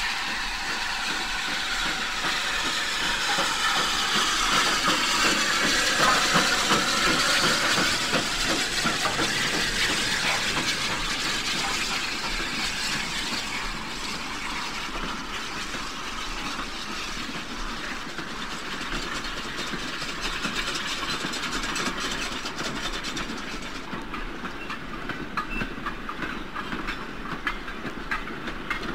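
A steam-hauled goods train rolling slowly past, its wagons clicking and clanking over the rail joints, with a hiss of steam. The sound swells over the first several seconds, then eases, and the clicking of the wagons gets denser near the end.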